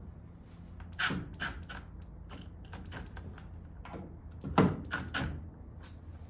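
Metal parts and tools being handled while a drill guide bushing is set in place: a few sharp clicks and knocks, the loudest about four and a half seconds in, over a low steady hum.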